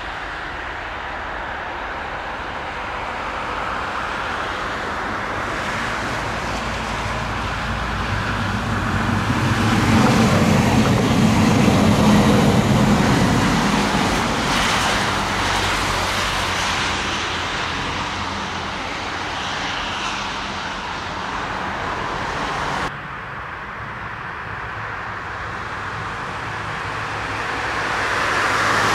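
A red Siemens Combino low-floor tram approaches and passes, its rumble of wheels on rails swelling to the loudest point about a third of the way in, over steady road traffic. The sound then drops suddenly to quieter distant traffic and rises again near the end.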